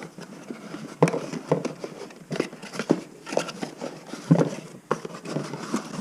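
Hands unpacking small parts from a box: plastic packaging crinkling and rustling, with a few light knocks as parts are picked up and set down.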